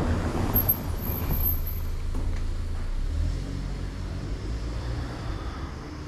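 A car passing on the street, a low engine rumble that slowly fades toward the end.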